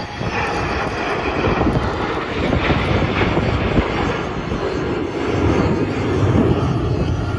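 Military jet formation flying over, a loud continuous rush of jet engine noise that swells twice.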